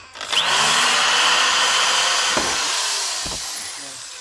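Electric drill running at full speed while boring a speaker mounting hole, then slowly winding down near the end.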